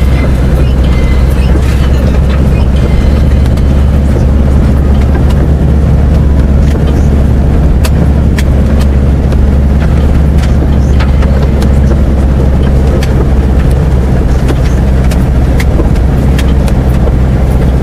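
Cabin noise of an Isuzu Trooper driving off-road along a grassy track: a loud, steady low rumble of engine and running gear, with scattered sharp ticks and knocks over it.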